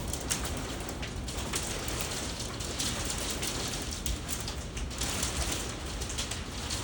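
Small hail mixed with rain striking the building: a steady hiss of rain with many sharp, irregular ticks from hailstones.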